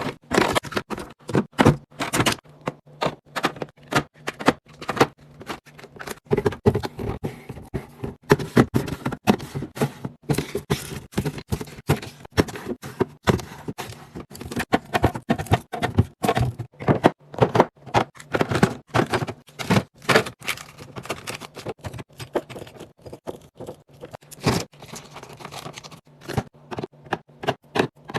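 Quick, irregular clicks, taps and scrapes of food packages and containers being handled and set down while a fridge is restocked.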